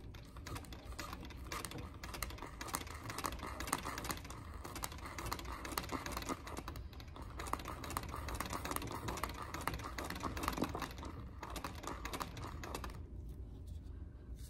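Treadle sewing machine stitching: a rapid, even ticking of the needle and mechanism that stops shortly before the end. The machine is stitching down a length of embroidery-thread cording on the lace, securing it first.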